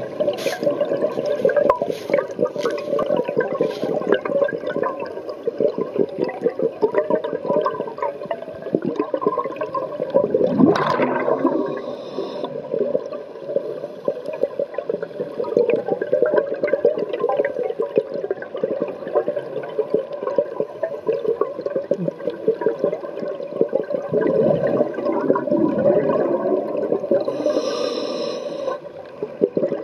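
Scuba diver's breathing heard underwater through a camera housing: a continuous crackling, bubbling rush of exhaled bubbles from the regulator, with louder gushes about a third of the way in and again near the end.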